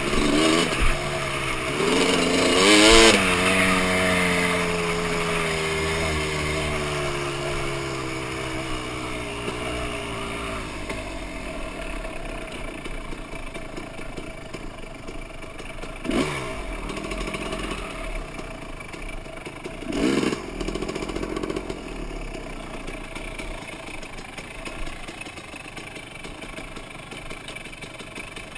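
Engine revved once about three seconds in, its pitch sinking slowly back down to idle, then blipped briefly twice later on. The running carries a strange noise that the owner places in the engine's bottom end.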